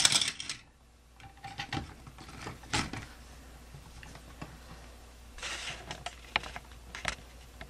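Plastic toy car-transporter trailer clicking and knocking as its top ramp is pulled up and set: scattered light clicks, with a cluster of them about five and a half to six and a half seconds in.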